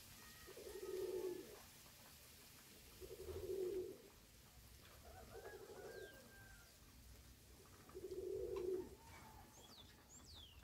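A pigeon cooing: four low, pulsing coos about two and a half seconds apart, with a few quick high bird chirps near the end.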